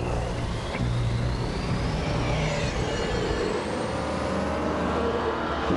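Bus engine running as the bus drives off along the road, with a thin rising tone over the first four seconds or so.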